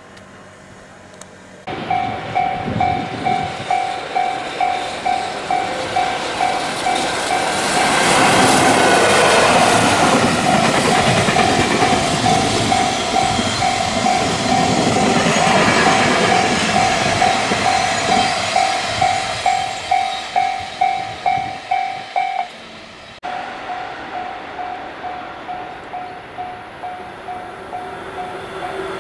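Level-crossing warning bell ringing about twice a second while a container freight train passes, its wheels and wagons making a long rush of rail noise. Near the end the sound changes abruptly and a crossing bell keeps ringing, fainter.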